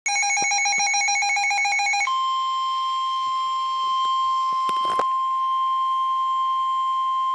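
Weather radio alert: a fast pulsing electronic alarm tone for about two seconds, then a steady single-pitch warning tone near 1 kHz, the NOAA Weather Radio 1050 Hz warning alarm that comes before a warning message. A brief click about five seconds in.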